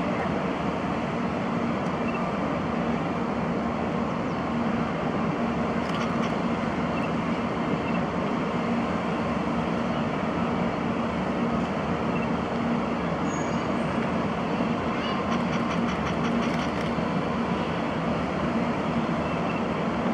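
500 Series Shinkansen train creeping slowly out of its depot shed: a steady rumble with a low, even hum, and a few light clicks in the last few seconds.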